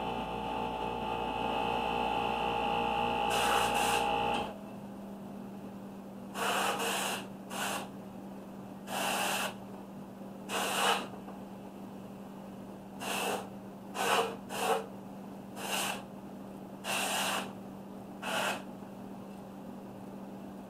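A steady motor runs and cuts off about four and a half seconds in. After that come about a dozen short hissing bursts from the airbrush as spots of paint are sprayed onto the tumbler, over a steady low hum.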